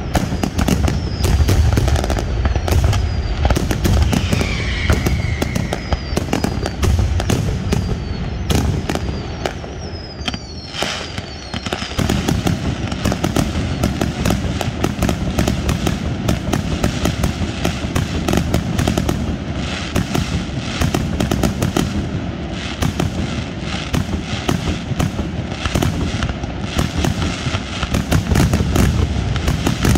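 Fireworks display: a dense, continuous barrage of shell bursts and crackling bangs. Several short falling whistles sound through the first third, and the barrage eases briefly about ten seconds in.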